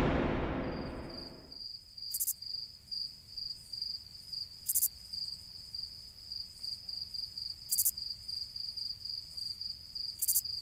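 Crickets chirping in a steady, evenly pulsing high trill, the night ambience sound effect, with a brief higher chirp every two to three seconds. The tail of a louder whoosh fades out over the first second and a half.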